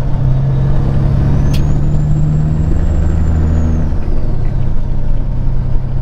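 Peterbilt 379 semi truck's diesel engine running steadily at highway speed, heard from inside the cab. The engine drone eases about four seconds in.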